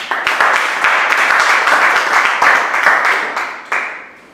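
Small audience applauding, a dense patter of hand claps that dies away near the end.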